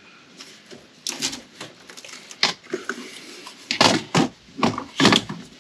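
Wire fish and taped wiring being pulled slowly by hand through a rubber firewall grommet: irregular scraping and rustling, louder twice near the end.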